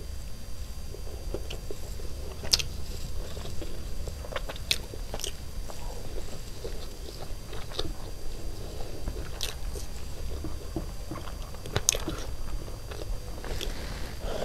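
A person chewing a mouthful of chicken biryani close to the microphone, with wet lip-smacking and sharp mouth clicks scattered throughout. The loudest clicks come about two and a half seconds in and again near twelve seconds.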